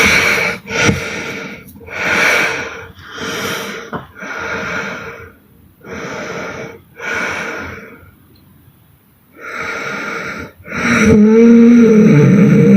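A sleeping woman snoring: a run of short, raspy, snorting breaths about once a second, a brief pause, then near the end a louder, longer snore with a buzzing tone.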